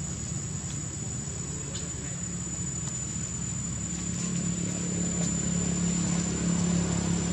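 Low steady hum of a motor engine, growing louder and more tonal about halfway through, with a thin, steady high-pitched whine above it.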